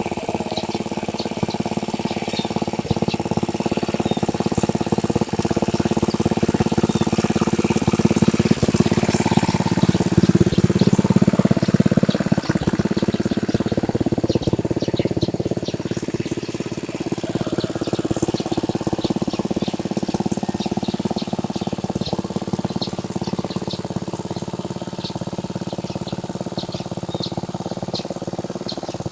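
A tractor engine runs steadily as it plows a flooded rice paddy, loudest about ten seconds in. Birds chirp over it in short, quick calls.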